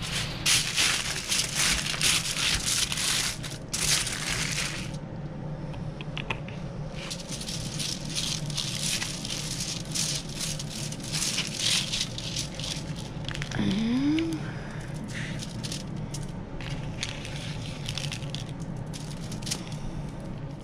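Aluminium foil crinkling and crackling as a sheet is handled and pressed into a baking pan, densest in the first few seconds, then lighter scattered crinkles as butter is rubbed over the foil.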